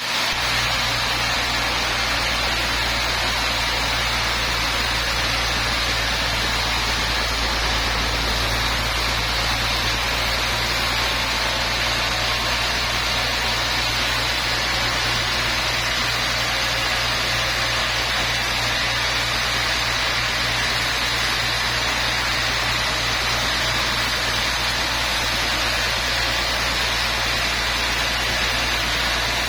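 Sawmill machinery running steadily: a constant low engine-like hum with a steady hiss above it, unchanging throughout.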